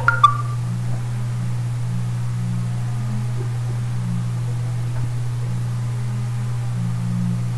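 Steady low hum with a fainter, slowly wavering drone above it, and a brief blip just at the start.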